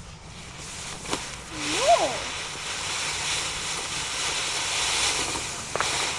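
A small ground firework fountain (a "kaleidoscope") catches with a click and sprays sparks with a steady hiss for about four seconds. A brief rising-then-falling squeal comes just after it lights, and a sharp pop comes near the end.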